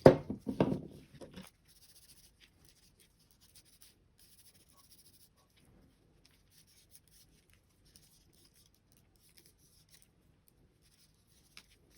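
Faint, intermittent rubbing of a cotton makeup pad wetted with isopropyl alcohol, wiping the plastic outer shell of a computer mouse, with a few light ticks of the part being handled.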